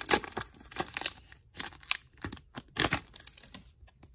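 Foil trading-card booster pack wrapper crinkling and tearing as it is torn open by hand, in a series of short, sharp crackles.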